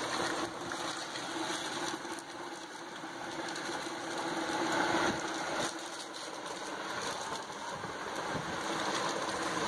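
A steady motor-like hum running over a background noise.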